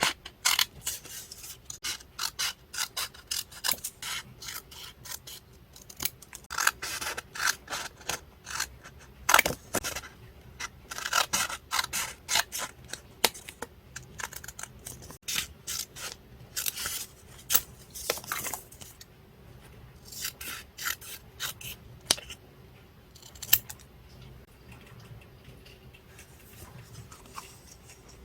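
Scissors cutting paper in runs of quick, crisp snips, with paper rubbing and scraping between them; the snipping thins out about two-thirds of the way through to a few fainter strokes.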